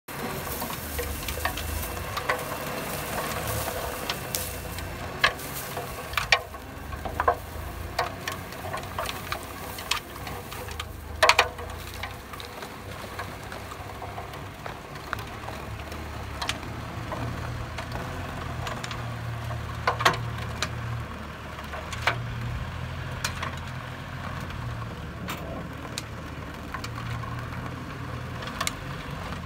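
Engine of a truck-based manure spreader running steadily as its rear spreader flings composted pig manure, with irregular sharp clicks and ticks over the low hum.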